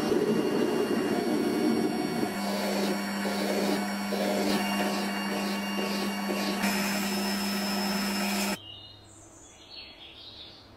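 Small metal lathe running with a steady hum as it turns a steel part, first under the cutting tool and then with a file worked against the spinning part in repeated strokes. The machine sound cuts off abruptly near the end, leaving a quiet background.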